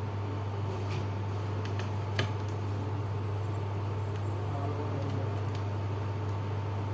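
Steady low hum with a faint, steady high tone over it, and a few light clicks about two seconds in.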